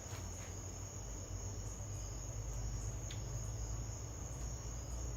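Steady high-pitched trill of crickets over a low, steady hum, with a faint click about three seconds in.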